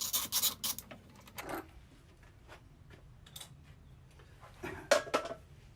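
Hand-tool work on the airbox's bolts and nuts: a quick run of metal clicks, then scattered clicks, and one sharp knock about five seconds in.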